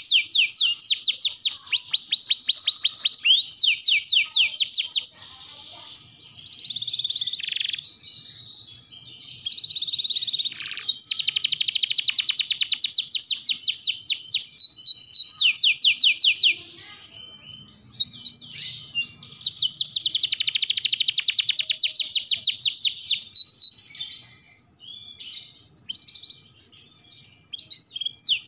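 Domestic canary singing: long, rapid trills of quickly repeated high sweeping notes, in three long phrases with softer scattered twitters and short lulls between them.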